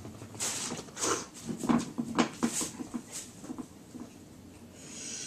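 A dog's short, noisy breaths, about six of them roughly two a second, dying down after about three seconds.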